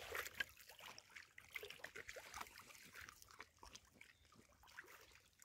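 Near silence, with faint, irregular small ticks and light water trickling and lapping.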